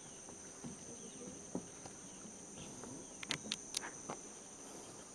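Steady high-pitched drone of Amazon rainforest insects, held on two pitches, with a few sharp clicks about three seconds in.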